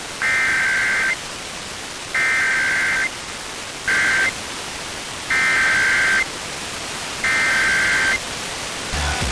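Emergency Alert System SAME header over FM radio: five short bursts of high-pitched digital data tones, each under a second long and about a second apart, with radio static hiss between them. These are the coded data bursts that open an EAS alert.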